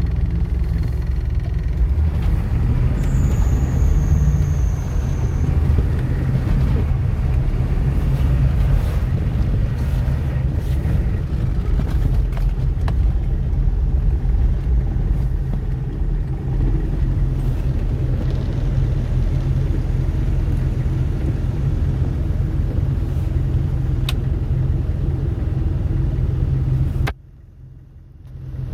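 H1 Hummer driving through snow: a steady engine and road rumble that cuts off suddenly near the end.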